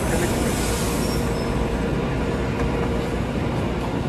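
Metro-North M8 electric multiple-unit train coming to a stop at the platform, with a steady rumble and hum and a hiss over about the first second.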